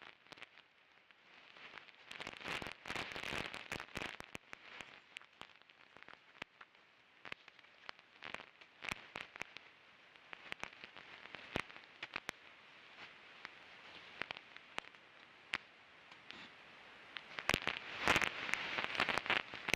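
Irregular crackling and sharp clicks over a faint hiss, the way an ultrasound detector renders high-pitched sounds audible. The clicks come in two denser flurries, a short one about two seconds in and a louder one near the end.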